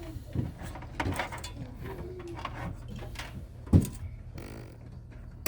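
Handling noise from a desktop PC being assembled: scattered clicks and knocks as cables and connectors are plugged in, with one louder thump after almost four seconds.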